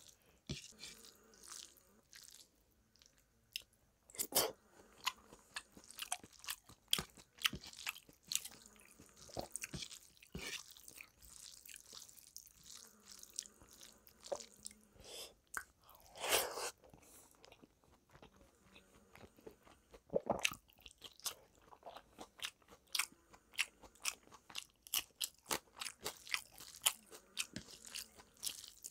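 Close-miked eating by hand: fingers squishing rice and dal together on the plate, with chewing and irregular sharp crunches and mouth clicks. The loudest crunches come about 16 and 20 seconds in.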